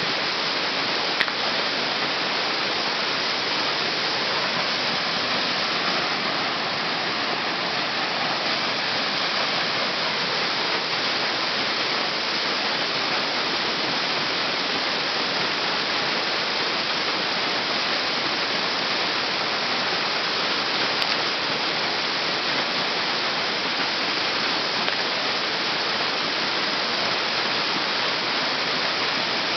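Waterfall plunging onto rocks and into a creek pool: a steady, unbroken rush of falling water. A single brief click about a second in.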